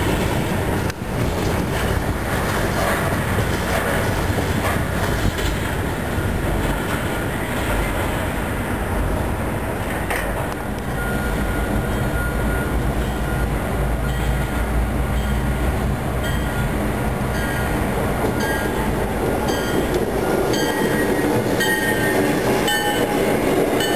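Train rolling past on the rails, a steady rumble of wheels, with short, regularly repeating high clicks from the wheels in the second half.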